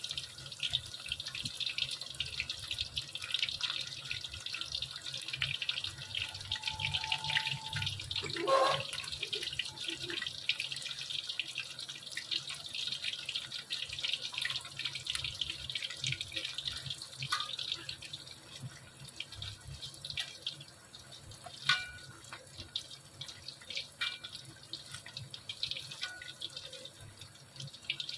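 A slab of paneer frying in hot mustard oil in a metal kadhai, the oil sizzling and crackling steadily. The sizzle grows quieter in the second half, with a few clicks of the spatula against the pan.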